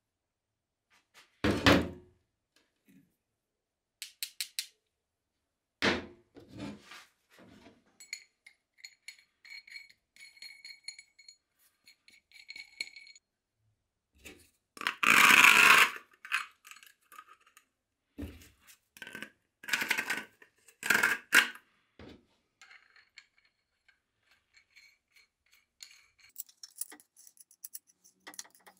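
Metal parts being handled on a steel workbench: a threaded steel rod, a hex nut and flap discs knocked, set down and slid about. A heavy thunk comes early, followed by clinks and a run of ringing metallic tones, then scrapes, the loudest lasting about a second just past halfway.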